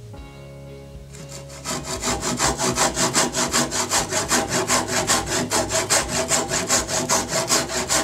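Brass-backed tenon saw cutting through spalted beech in quick, even back-and-forth strokes, starting about two seconds in.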